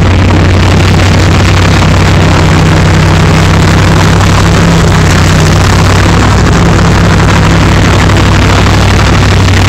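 MT-LB tracked armoured carrier's YaMZ-238 V8 diesel engine running steadily while the vehicle drives, heard from the driver's position as a loud, constant low drone over a noisy mechanical din.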